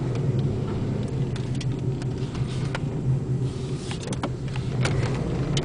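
A 2000 Pontiac Sunfire's four-cylinder engine running as the car is driven, heard from inside the cabin as a steady low hum with road noise. A few scattered short clicks and knocks come through, mostly in the second half.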